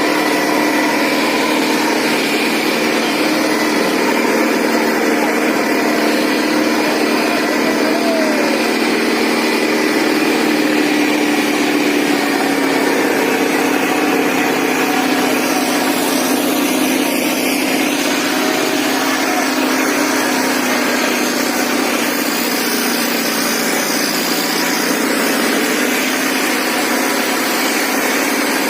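Indo Farm 3055 DI tractor's diesel engine running steadily under load while pulling two harrows, its pitch sagging slightly about halfway through.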